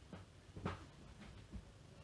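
Wooden spatula faintly scraping and knocking against a nonstick pan while stirring and pressing thick cashew-sugar paste: about four soft strokes, the loudest about two-thirds of a second in.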